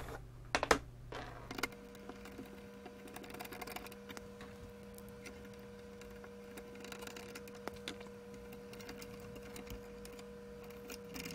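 Faint small clicks and creaks of a small screwdriver driving Torx screws back into the thin metal plate over a CD player's tray drive gear, with light handling of the parts. A faint steady hum starts about two seconds in.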